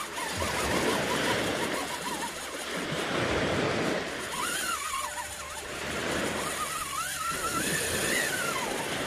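Spinning reel's drag buzzing as a hooked fish pulls line off the spool, its pitch wavering up and down with the speed of the run, over a steady noisy background.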